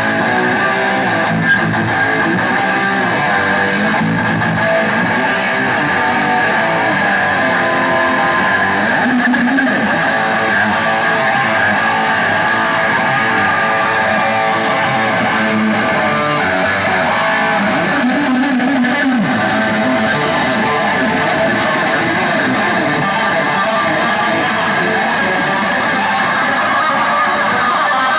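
Live heavy metal band playing, loud and steady, with electric guitars carrying the sound over bass guitar.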